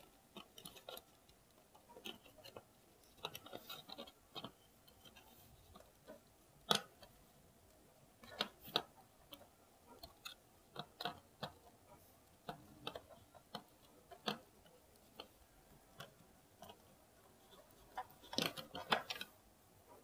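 Scattered small clicks and taps of hands handling the hair dryer's plastic housing, switch and wiring while fitting them back into place, with one sharper click about a third of the way in and a quick run of clicks near the end.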